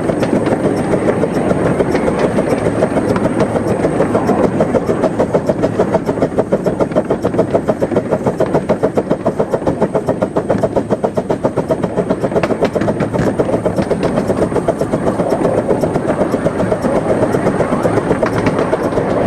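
Krupp 4-6-2 Pacific 15-inch gauge miniature steam locomotive running along the line, heard from the driver's position, with a fast, even beat of exhaust pulses over the rumble of the wheels on the track.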